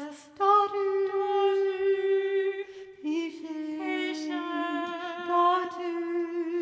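A mixed vocal quartet singing slow, held chords a cappella, moving to a new chord about half a second in and again around three seconds in.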